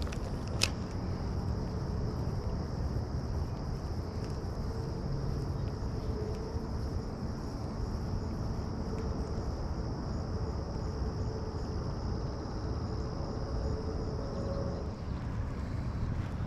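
Insects trilling steadily in one high, even tone over a low rumble, the trill stopping near the end. A single sharp click comes about half a second in.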